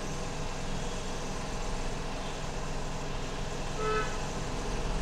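Steady low hum under background noise, with one short pitched toot just before four seconds in.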